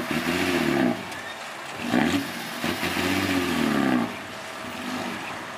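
Diesel engine of a loaded six-wheel dump truck revving up and down as the truck moves off, its pitch rising and falling three times.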